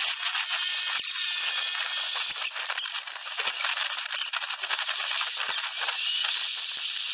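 7.5-inch gauge ride-on miniature train running along its track: a steady rattle and hiss with many scattered sharp clicks from the wheels on the rails.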